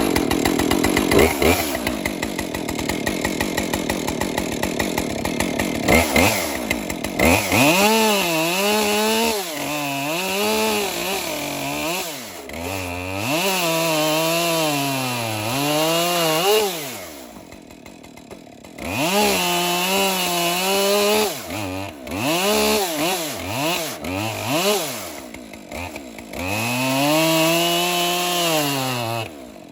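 Chainsaw rigged as a chop saw, run at full throttle and repeatedly sagging in pitch and recovering as it is dropped through logs. It falls back to a quieter idle twice between cuts.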